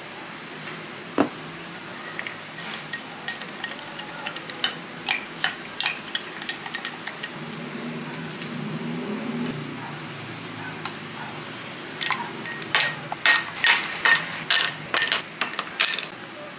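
A metal spoon stirring coffee in a drinking glass, clinking against the sides. Then a plastic ice cube tray crackles as it is handled, and several ice cubes drop into the glass one after another with ringing clinks near the end.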